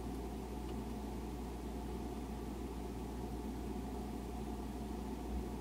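Refrigerator running with a steady hum, made of a low drone and a few held tones.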